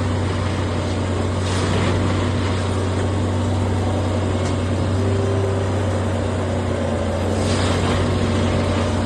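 Engine of heavy track-repair machinery running steadily with a deep drone, with a couple of brief rushes of noise.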